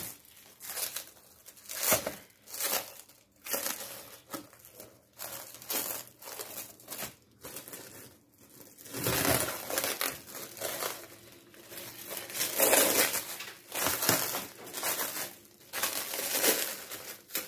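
Plastic stretch film being peeled off a cardboard record mailer and crumpled: irregular bursts of crinkling and rustling, some brief, some lasting a second or two.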